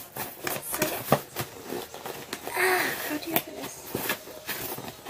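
A cardboard parcel box being opened by hand: a run of sharp clicks, taps and scrapes of cardboard and packing tape, with a longer tearing rustle about halfway through.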